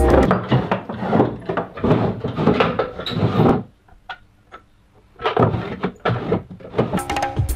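Wooden desk drawers being pulled open, rummaged through and pushed shut: a run of knocks, scrapes and rattles. About halfway through there is a lull of a second and a half with only a few faint ticks, then the clatter starts again.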